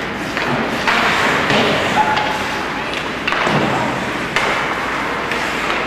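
Ice hockey game sound in an echoing rink: sharp knocks of sticks and puck and a few thuds against the boards, over a steady rink hum and distant voices.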